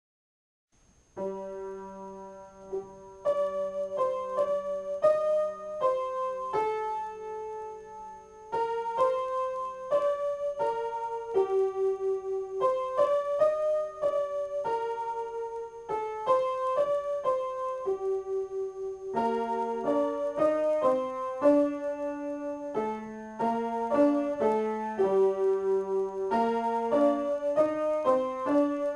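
Upright piano improvisation starting about a second in: single notes in a slow, repeating melody over a held lower note, with the low notes moving more in the second half.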